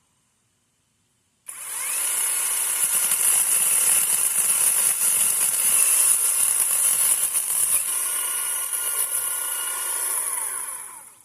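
Chainsaw running at full speed, cutting into a tree. It starts abruptly about a second and a half in, holds steady with a high whine, and runs down just before the end.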